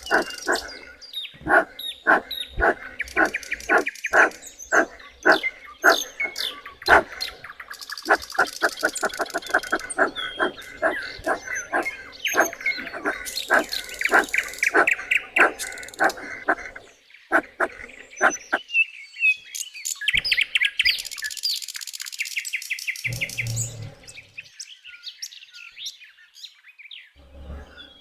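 Birds calling: runs of short repeated calls, a few to several a second, with higher rapid chirping trills later on.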